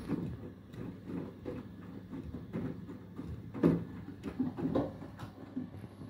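Beko WTK104121W front-loading washing machine tumbling a wet wash load on its Eco 40 cycle: laundry sloshing and flopping in the water inside the drum, with irregular soft thuds and a few stronger knocks in the second half.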